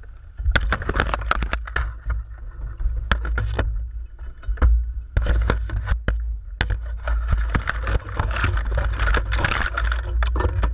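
A long pole knocking and scraping against a gum-tree branch and the DJI Phantom lodged in it, heard close up from the drone's camera. Repeated sharp knocks come with rustling leaves over a steady low wind rumble on the microphone.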